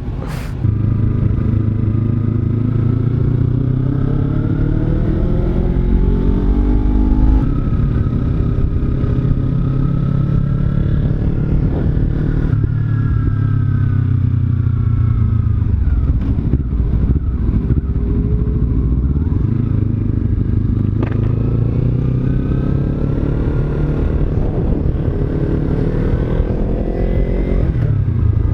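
Kawasaki Z300's parallel-twin engine under way, its pitch climbing steadily as the bike accelerates through the gears, dropping sharply at each change or easing off, then climbing again several times.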